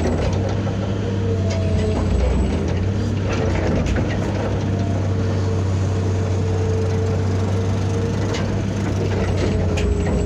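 Cat 320B excavator's diesel engine running steadily under load, with a wavering whine over it and scattered metallic clicks and clanks.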